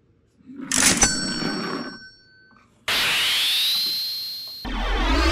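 Cartoon-style sound effects: a clattering hit with a sharp click and a bright ringing ding about a second in. Then, starting suddenly near three seconds, a whistling sweep that rises and holds, followed by a second rising sweep over a low rumble.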